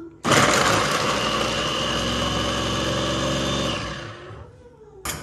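Small electric mini food chopper running as its blades mince garlic cloves: a steady whir that starts abruptly just after the start, holds for about three and a half seconds, then winds down and stops.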